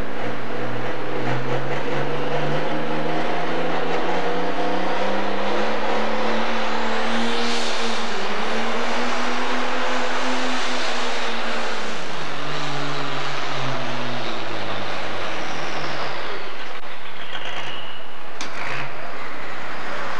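Pro Stock pulling tractor's turbocharged diesel engine at full load pulling the sled. Engine pitch climbs, dips briefly about eight seconds in, climbs again, then winds down over a few seconds as the run ends. A high whistle rises about seven seconds in and another falls late, and a sharp click comes near the end.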